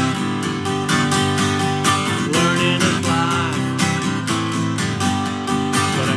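Steel-string acoustic guitar strummed in a steady rhythm, full chords ringing.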